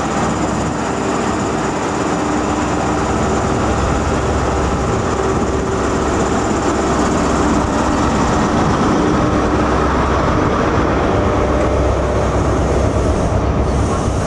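Class 43 HST diesel power car running as it rolls slowly past along the platform, its engine note growing louder as the power car draws level about eight seconds in, then the coaches rolling by on the rails.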